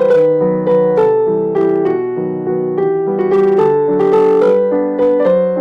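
Background music: a piano or electric piano playing a gentle melody of sustained notes.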